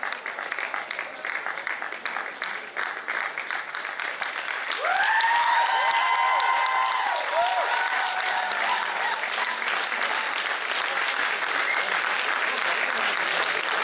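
Audience applauding. About five seconds in the applause gets louder and cheering voices join in for a few seconds.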